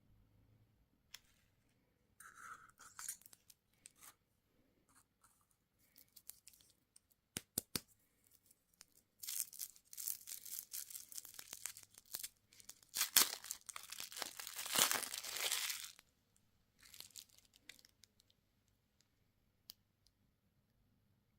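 A candy wrapper being torn open and crinkled. There are a few taps and short rustles at first, then two long stretches of tearing and crinkling past the middle.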